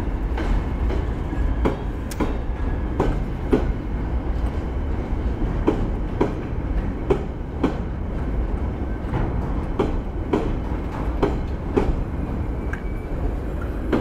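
Empty coal wagons of a freight train rolling past. A steady low rumble is punctuated by sharp wheel clacks over the rail joints about every half second.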